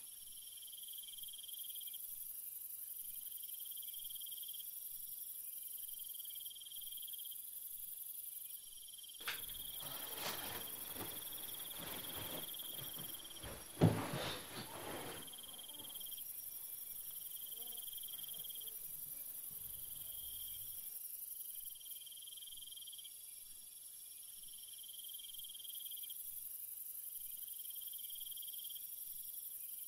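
Crickets chirping in repeated trills lasting a second or two each. Between about nine and fifteen seconds in there is a stretch of rustling with one sharp knock near fourteen seconds, the loudest sound.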